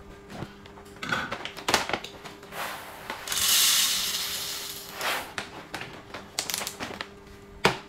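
Coffee beans poured from a foil bag into the grinder hopper of a 3-in-1 espresso machine: a dense rushing patter for about two seconds in the middle, with crinkling of the bag and sharp clicks from handling the hopper and lid before and after.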